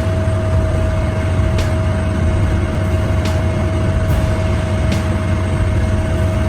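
A heavy engine-driven machine running steadily, with a constant low rumble and a steady whine, and faint clicks now and then.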